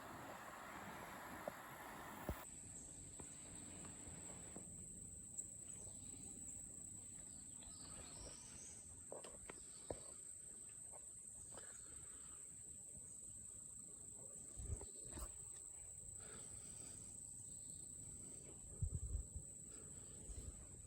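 Steady high-pitched insect trilling, crickets, outdoors in woodland. A louder rushing noise fills the first two seconds and cuts off suddenly, and a few faint low knocks come near the end.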